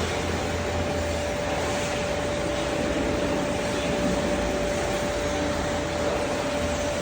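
Steady mechanical running noise with a constant whine, unbroken throughout.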